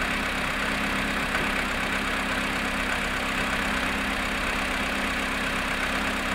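Volkswagen Polo sedan engine idling steadily while still cold, after sitting 14 hours at −7.5 °C, with the engine knock that the owner is recording.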